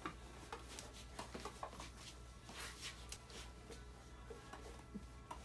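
Quiet room tone with a steady low hum and faint scattered taps and rustles.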